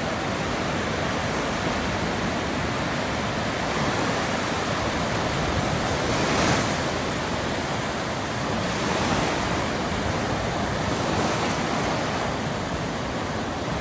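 Lake Michigan waves breaking and washing onto the shore in a steady rush, swelling with each incoming wave, the largest one breaking about halfway through.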